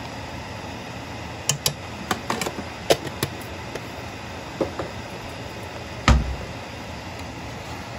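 Light clicks and taps of kitchen containers and a spice jar being handled and set down, scattered through the first five seconds, then one heavier knock about six seconds in, over a steady background hum.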